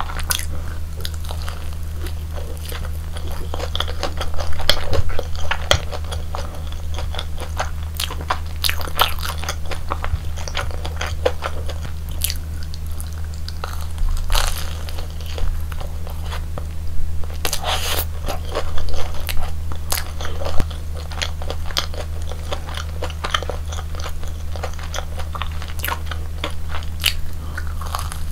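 Close-miked biting and chewing of crunchy fried food: dense crackling crunches, with louder bursts of bites about four seconds in and again past the middle, over a steady low hum.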